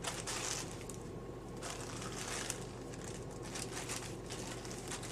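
Wet hands rubbing and smoothing wet plaster of Paris bandage over a foot cast: a series of soft rubbing strokes, with a steady low hum underneath.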